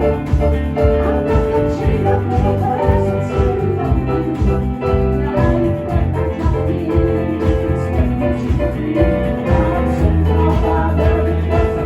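Live band playing a song, with a steady bass line and held melody notes over a continuous beat.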